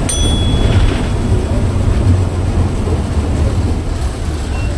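A steady low rumbling noise with a hiss over it.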